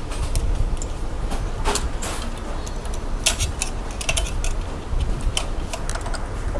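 Light metallic clicks and rattles of a sheet-metal outer cover being handled and fitted back over the duplex-flap solenoid on a Ricoh MP copier unit, scattered irregularly over a steady low hum.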